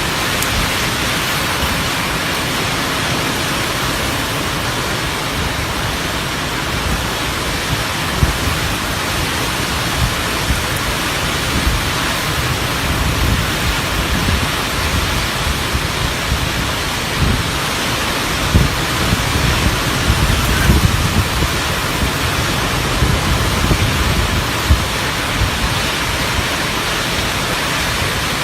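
Heavy rain pouring down in a steady, dense hiss, with irregular low rumbles and thumps that come more often in the second half.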